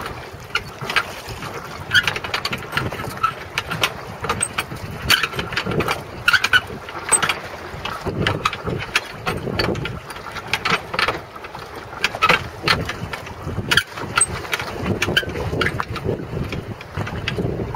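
Gusty wind buffeting the microphone, with choppy water slapping against a jetty in frequent, irregular short sharp knocks.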